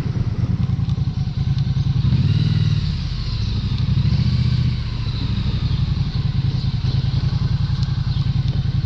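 Vehicle engine running with a rapid, even beat of firing pulses, while the vehicle is driven along.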